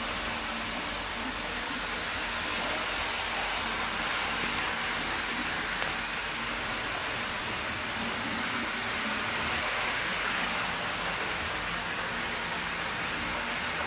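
Hornby OO gauge Class 47 model locomotive hauling five coaches round an oval of track: a steady whir of the motor and wheels running on the rails.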